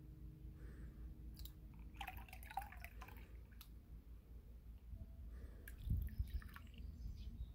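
Water splashing and dripping as a plastic bucket is dipped and tilted in a shallow tub of water to pour water off, with a few dull handling bumps about six seconds in.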